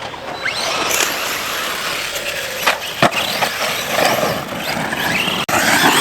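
Electric motor of a large RC basher truck whining up and down in pitch as the throttle is worked, with its tyres running over dirt and a few sharp knocks, such as landings or hits on the ground.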